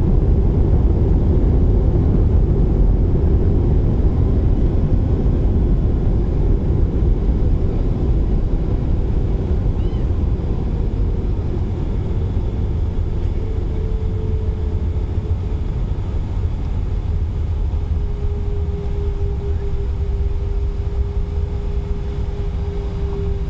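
Cabin noise of an Airbus A320 on the ground after landing, heard from a window seat over the wing: a heavy low rumble that eases slowly as the jet slows. A steady whine comes in about halfway and grows stronger near the end.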